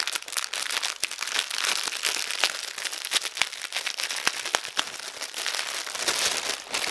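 A clear plastic bag of small diamond-painting drill packets being handled and turned over, its plastic crinkling with a steady crackle of many small clicks.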